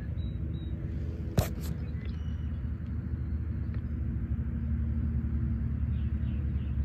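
A steady low rumble that grows slightly louder toward the end, with one sharp knock about a second and a half in and faint bird chirps near the end.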